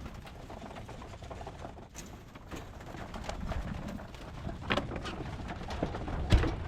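Pigeons cooing in a loft, with a few sharp knocks and rattles from feed and containers being handled; the loudest knock comes near the end.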